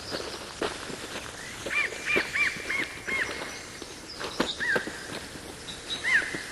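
A bird calling: a quick run of about five short chirps, then two single chirps later on, over faint scattered clicks and knocks.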